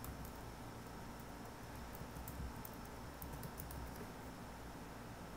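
Computer keyboard keys clicking faintly as a name is typed: scattered keystrokes, some in quick runs about two and three and a half seconds in, over a low steady hum.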